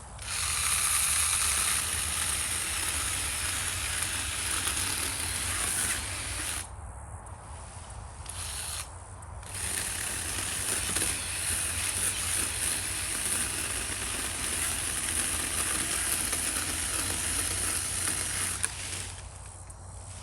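Battery-powered mini chainsaw cutting through wood in long runs. It stops about six seconds in, gives a short burst, then runs steadily again until it cuts off near the end.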